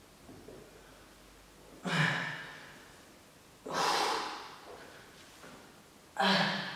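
A man breathing out hard with effort during a seated twisting core exercise: three sharp exhalations about two seconds apart, each starting suddenly and fading over about a second.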